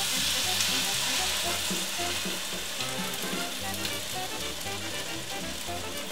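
Butter, peppers, onions, ham and bacon sizzling in a hot frying pan as beaten eggs are poured in over them; the sizzle eases slowly toward the end.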